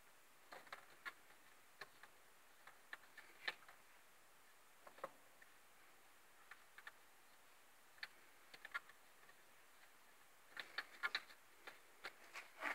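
Faint, irregular ticks and clicks over near silence, with a short flurry of them near the end.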